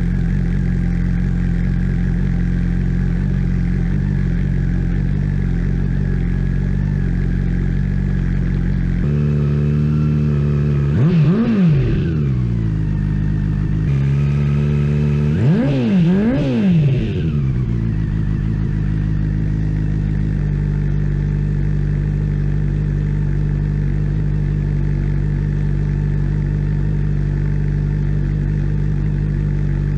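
Honda CB400 Super Four's inline-four engine idling through an aftermarket Yoshimura-replica exhaust. It is blipped once about a third of the way in and twice in quick succession about halfway, each rev rising and falling back before it settles to a steady idle again.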